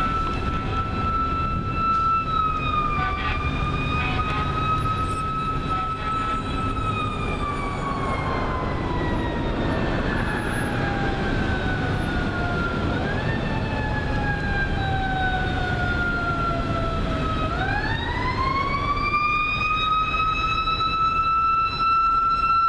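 Fire engine siren wailing: a single tone holds steady, sinks slowly over about ten seconds with a brief upward step partway through, then climbs back up and holds high near the end, over steady traffic noise.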